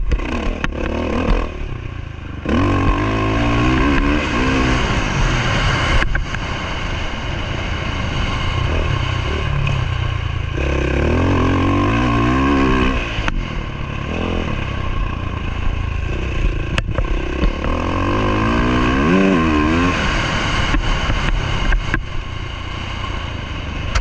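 Dirt bike engine being ridden around a motocross track, its revs climbing and falling several times as the throttle is opened and closed through the corners and straights. A few sharp knocks cut through the engine.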